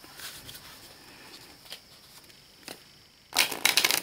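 Thin, laminated Everyday Witch Tarot cards being riffle-shuffled: a few light taps and handling of the deck, then about three seconds in a sudden, loud, rapid flutter of card edges as the two halves riffle together very smoothly.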